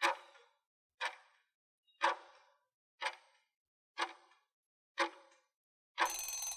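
Countdown-timer tick sound effect, one sharp tick each second. About six seconds in, as the countdown reaches zero, the ticks give way to a longer noisy burst of almost a second with a thin high tone in it.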